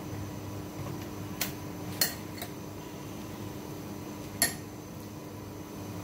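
Four light clinks of kitchen utensils against dishes, about half a second apart at first and one more a couple of seconds later, over a steady appliance hum.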